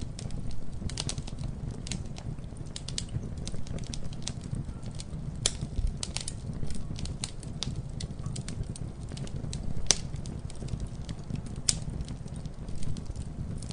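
Campfire burning and crackling: a steady low rumble of flames with frequent irregular sharp pops and snaps of burning wood, a few louder ones near the middle and near the end.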